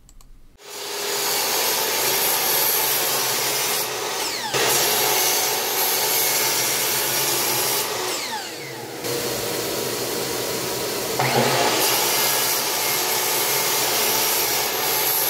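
Miter saw motor starting about half a second in and running at speed, its blade cutting a small piece of plexiglass. The sound shifts a few times as the blade is lowered into the plastic and lifted again.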